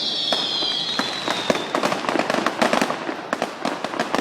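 Fireworks going off: a dense run of sharp pops and crackles, with a high whistle that glides slowly down and fades out about two seconds in.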